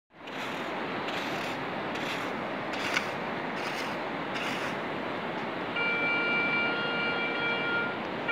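Hand sand scoop digging into wet beach sand in several short scraping strokes, over a steady wash of surf noise. About six seconds in, a Garrett ACE 150 metal detector gives a steady, multi-pitched target tone for about two seconds as the coil passes over the hole.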